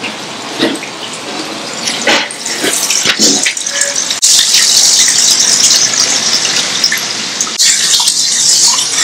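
A small cascade of water spilling over rocks into a garden pond: steady splashing that starts abruptly about four seconds in. Before it, there is only background noise with a few short knocks.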